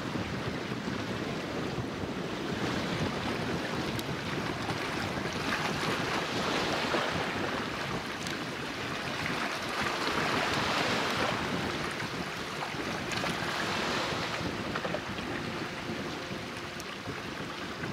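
Wind buffeting the microphone over a steady wash of harbour water noise, rising and falling in strength. A faint steady hum joins about two-thirds of the way in.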